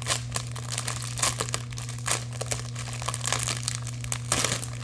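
Plastic packets of diamond-painting drills crinkling and rustling in irregular bursts as they are handled and one is pulled out of the kit.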